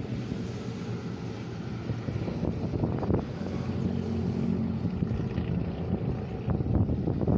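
A motor engine running steadily, a low hum with a few held tones.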